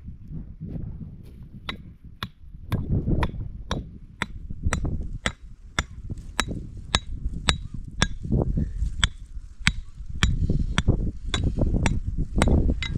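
Steady hammering, about two strikes a second, each blow with a bright ringing note, over wind buffeting the microphone.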